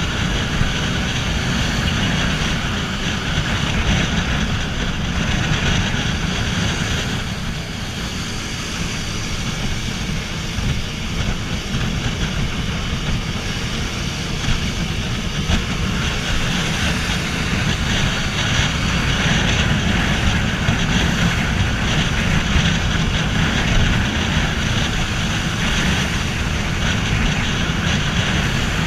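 Yamaha Fazer 250 motorcycle at riding speed: single-cylinder engine running under a steady rush of wind over the camera microphone, easing off a little about eight seconds in and building again a few seconds later.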